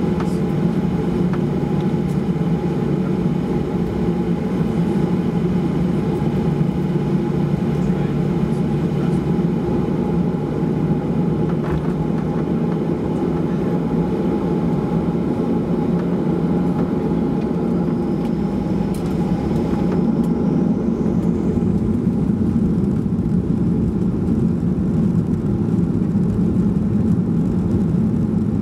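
Cabin noise of a Boeing 737-800 taxiing, heard inside the cabin near the rear: its CFM56-7B engines running at low taxi thrust, a steady drone with a low hum.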